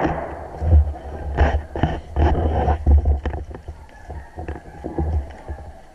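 Handling noise on the microphone: an uneven low rumble with scattered clicks and rustles as the camera is shifted, fading out near the end.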